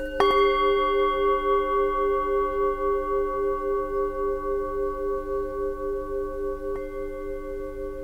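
Hand-hammered full moon singing bowl struck once with a mallet just after the start, then ringing on in several long overlapping tones with a slow wavering pulse as it fades. A light second tap about seven seconds in brings up a higher overtone.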